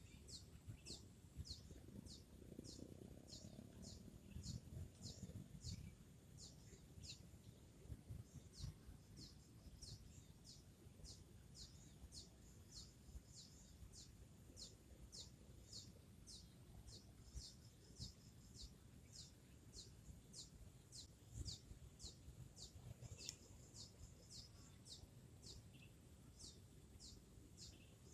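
A small bird calling faintly and steadily: a short, high chirp that falls in pitch, repeated about twice a second without a break.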